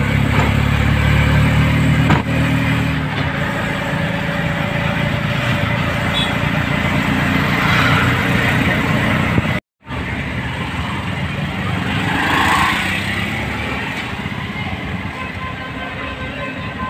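Auto-rickshaw (tempo) engine running with road and wind noise, heard from inside the moving three-wheeler. The sound cuts out completely for a moment a little under halfway through.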